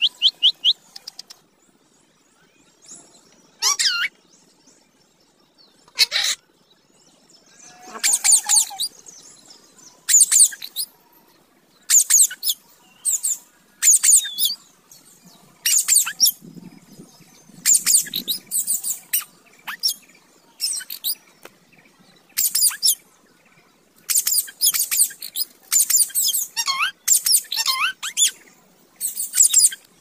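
Indian ringneck parakeets calling: short, shrill chirps and squawks in bursts every second or two, some with quick rising and falling whistled notes.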